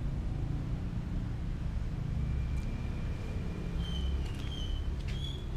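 A steady low rumble like a vehicle engine running nearby. In the second half come a few short high chirps and faint clicks.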